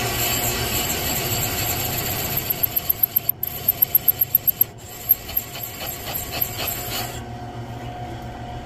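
Valve-seat machine's spinning cutter cutting a 70-degree throat into a newly installed intake seat in a Ford 300 cylinder head: a steady motor hum with metal scraping. For a couple of seconds in the middle the cut comes in quick pulses, about six a second, and the machine stops about seven seconds in.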